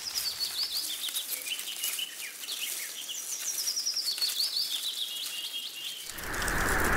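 Birds chirping: many short, quick chirps over a faint hiss. About six seconds in, a steady rushing hiss like rain comes in.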